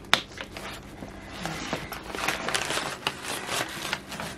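Resistance-band tubes with metal clips and carabiners being pulled out of a nylon mesh storage bag: fabric rustling with a run of clicks and clinks from the hardware, starting with a sharp click.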